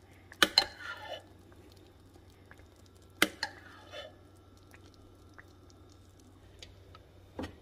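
A metal spoon clinking sharply a few times against the slow cooker's crock while thick, sticky glaze is spooned over chicken, with faint wet squishing and dripping of the sauce between the clinks.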